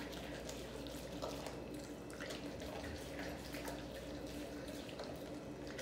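Faint wet chewing and smacking of an American bully dog gnawing the skin and fat of a large turkey leg, with scattered soft clicks.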